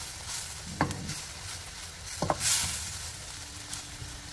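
Chopped onion and garlic sizzling in butter and oil in a steel wok while a wooden spatula stirs them. The spatula knocks against the pan twice, with a swell of sizzle and scraping after the second knock.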